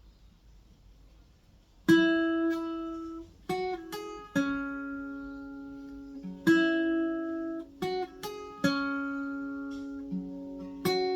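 Acoustic guitar strumming chords, each struck sharply and left to ring out and fade before the next. It starts about two seconds in, after near silence.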